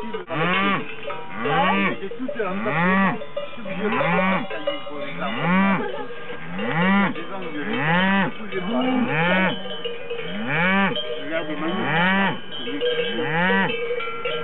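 Cattle mooing, a rising-and-falling call about once a second, with cowbells ringing.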